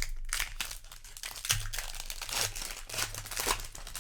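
Foil booster pack wrapper crinkling and rustling in the hands in a quick, irregular run of sharp crackles.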